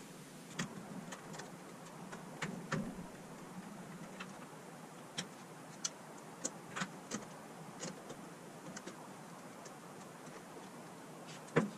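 Scattered light clicks and ticks, irregularly spaced, of a T10 Torx screwdriver working small screws out of the plastic housing of a Dyson DC43 vacuum; the sharpest click comes near the end.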